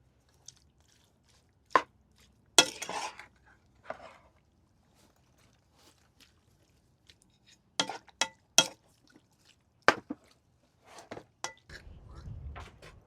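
Hard objects clicking and knocking together: scattered sharp clacks, some in quick pairs and threes, one followed by a brief scrape. A low rumble comes in near the end.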